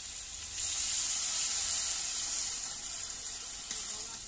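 Water poured from a plastic jug into a hot kadai of spiced green mango frying in masala. It sets off a loud burst of sizzling and hissing about half a second in, which eases off near the end.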